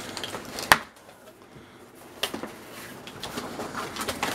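Cardboard box being handled and its flaps opened by hand: one sharp knock under a second in, then a short lull, then scattered taps and rustling of cardboard.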